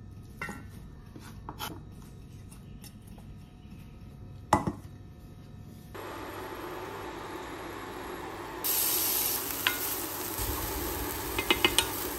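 A kitchen knife chopping choy sum stalks on a wooden cutting board, a few separate strokes with one sharp chop past the halfway mark. Then oil hissing in a frying pan as chillies and garlic fry, with a few clicks of a wooden spatula against the pan near the end.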